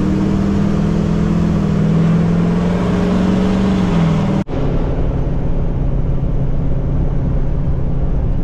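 Big Kodiak truck driving along the road: a steady engine hum with road noise that rises slightly in pitch and then eases off. About halfway through the sound cuts out abruptly for an instant and picks up again as a steadier, lower drone.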